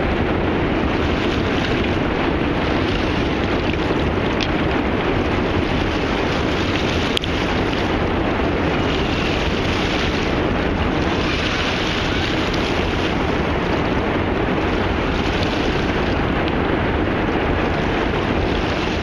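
Steady wind noise rushing on the microphone.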